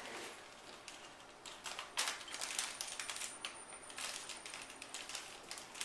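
Quick, irregular light clicks and rattles of fridge contents being knocked about as a kangaroo rummages in an open fridge, starting about two seconds in.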